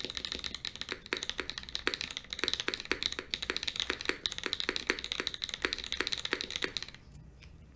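Typing on a Bulwark TKL mechanical keyboard with Mode Designs Obscura linear switches, an FR4 plate, case foam and bottom silicone: a quick, even run of keystrokes that stops about seven seconds in.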